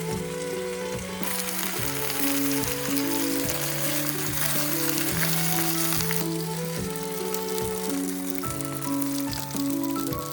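Food sizzling in a hot pan, the sizzle swelling loudest from about a second in until about six seconds, over background music.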